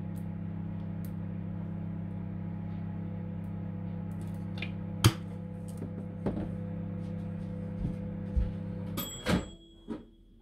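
Microwave oven running with a steady hum, with a sharp click about five seconds in. The hum stops about nine seconds in, followed by a beep and a couple of clicks.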